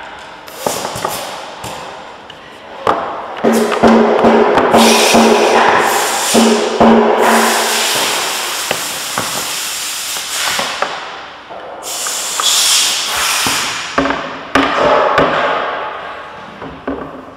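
Background music with percussion.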